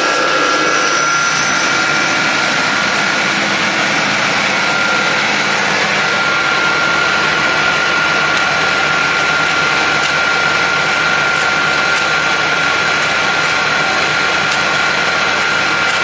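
Electric peanut grinder (a stainless-steel colloid mill) running steadily while grinding peanuts into paste: a loud, even mechanical whir with a constant high-pitched whine on top.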